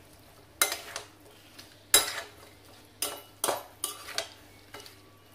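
A spatula stirring chicken in a metal kadai, clanking and scraping against the pan. There are sharp knocks about a second in and at two seconds, then a quick run of several between three and four and a half seconds. The masala in the pan has dried down, so there is little sizzle under the clanks.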